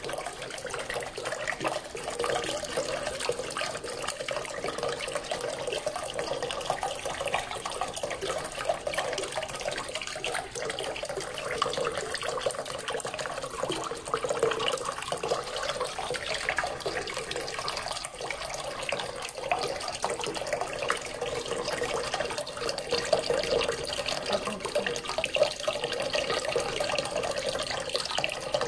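Small fountain's water jet falling back into its basin: steady splashing and trickling water.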